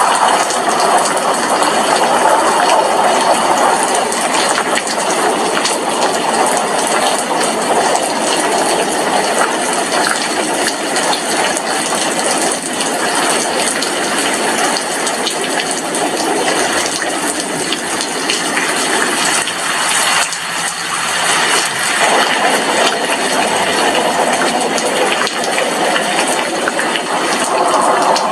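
Heavy rain striking a glass window: a dense, steady hiss of many drops, easing a little about two-thirds of the way through.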